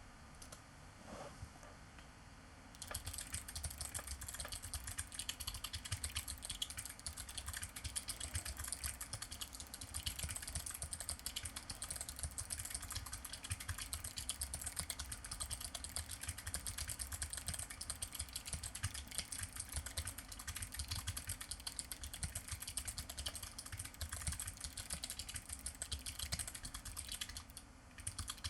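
Fast, continuous typing on a Ferris Bling 0.2 split keyboard with clicky Kailh Choc White low-profile switches, starting about three seconds in.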